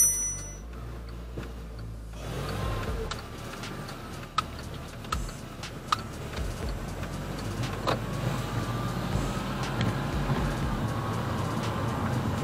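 Car pulling away from a full stop and driving off through a right turn, heard from inside: engine and tyre noise build from about two seconds in, with a faint rising whine as it speeds up and a few light knocks. A bright chime fades out right at the start.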